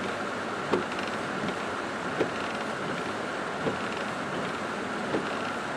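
Steady rain-and-vehicle noise inside a car cabin, with a short squeaky thump about every second and a half, four times, in the rhythm of windshield wipers sweeping the glass.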